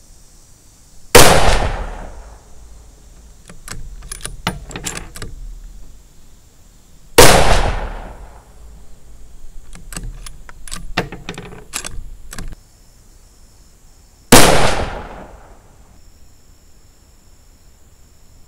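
Three shots from a scoped .243 Winchester bolt-action rifle, about six to seven seconds apart, each ringing out and dying away over about a second. Between the shots the bolt is worked, a run of metallic clicks and clacks as the spent case comes out and the next round is chambered.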